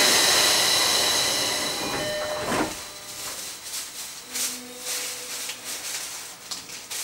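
Odakyu 4000 series subway car doors closing at a station: a loud steady hiss comes in through the open doorways, then the doors shut with a thump about two and a half seconds in. After that the car is much quieter, with only scattered small noises.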